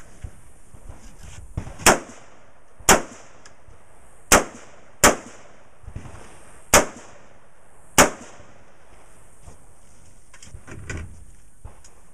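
Six rifle shots from an AR-15-style rifle, fired one at a time at uneven intervals of roughly a second, each a sharp crack with a short ringing tail.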